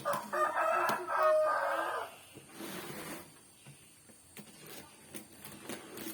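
A rooster crowing once, one call lasting under two seconds, followed by faint scattered clicks and knocks.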